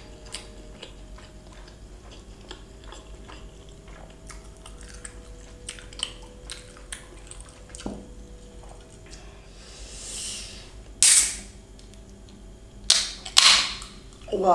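Soft mouth clicks of chewing, then a Thums Up soda can being cracked open: a short fizz and a loud sharp pop of the tab about eleven seconds in, followed by two more sharp metallic clicks of the tab.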